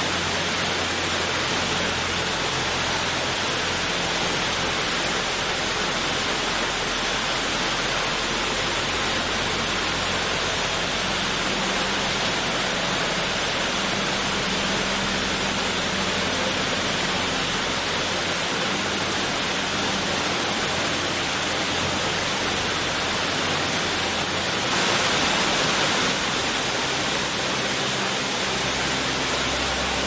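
City plaza water fountain: a steady rush of falling, splashing water, briefly swelling a little near the end, over a low steady hum.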